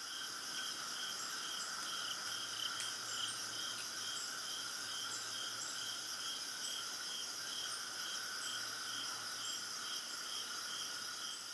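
Night insect chorus: several crickets trilling steadily at different pitches, one of them pulsing about twice a second.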